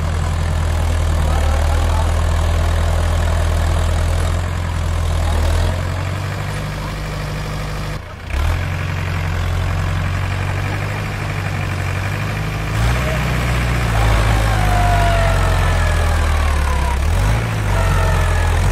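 Farm tractor's diesel engine running steadily at low revs, with a brief drop-out about eight seconds in and a shift in the engine note around two thirds of the way through.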